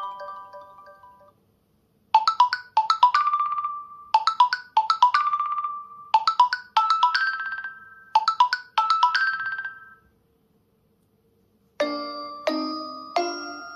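OnePlus 10 Pro ringtones played one after another. One fades out at the start; after a short silence a bright chiming ringtone plays short phrases of quick notes for about eight seconds, then stops. About two seconds later another ringtone with lower, fuller notes begins.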